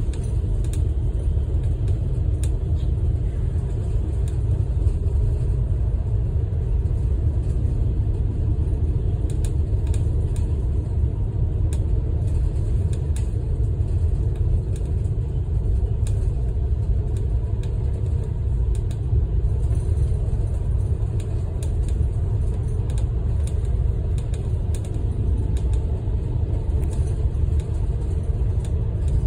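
Steady low rumble of engine and tyre noise heard from inside a large vehicle cruising along a highway, with faint scattered ticks over it.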